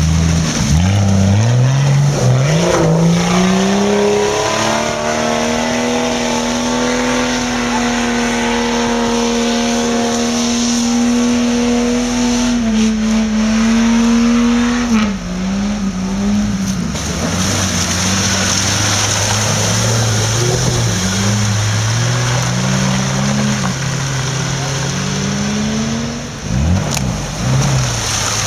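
Off-road 4x4 engines working hard in mud. First a Jeep Grand Cherokee's engine climbs in revs and holds steady at high revs for several seconds. Then, after a drop about halfway through, a Suzuki Vitara's engine revs up and down again and again as it drives through.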